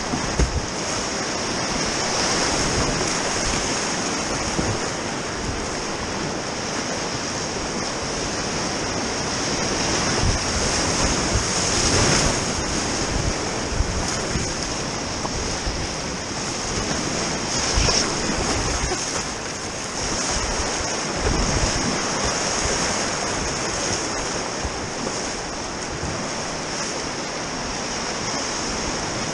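Whitewater rapids rushing close around a kayak in a steady, loud wash of churning water. Irregular splashes and knocks from paddle strokes come through it.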